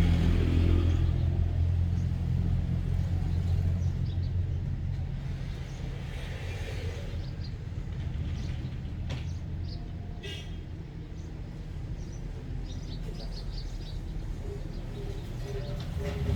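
Low rumble of a motor vehicle, loudest at first and fading away over the first several seconds, leaving a fainter steady traffic rumble with a few light ticks.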